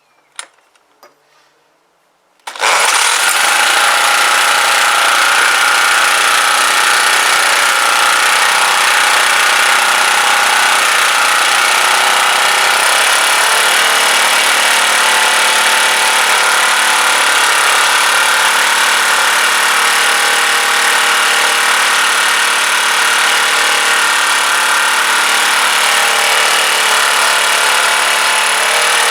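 Small petrol engine of a Clarke pressure washer bursts into life about two and a half seconds in and keeps running steadily at a fast idle. It is running on choke, and the owner thinks choke is the only way it will run so far.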